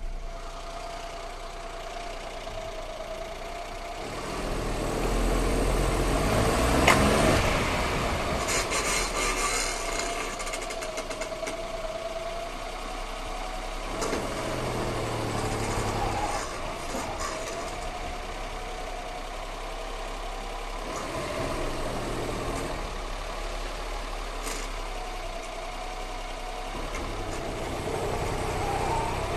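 Daihatsu Charade G10 running, with its brakes making a strange noise that shows only when they are warm: a wavering mid-pitched tone over the engine, swelling and fading several times.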